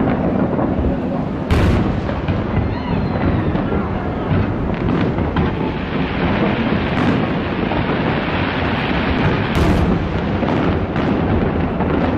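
Fireworks bursting: a continuous deep rumble of shells going off, with two louder sharp bangs, one about a second and a half in and one later on.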